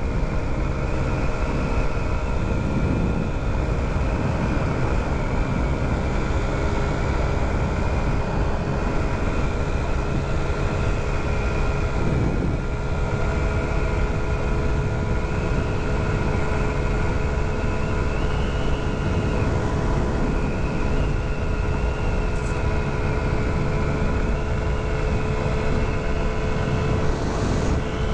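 Honda Ruckus scooter's 49cc four-stroke single-cylinder engine running at a steady cruise, an even drone, with wind rushing over the microphone.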